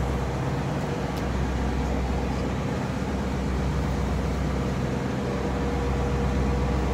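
Fishing boat's engine running steadily under way: an even low hum with a faint steady whine over it.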